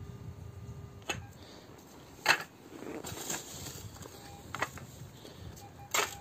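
Perforated stainless-steel sand scoop digging into sand: several sharp scraping crunches, the loudest about two seconds in, and a rustle of sand around the middle. A few faint short beeps from the metal detector.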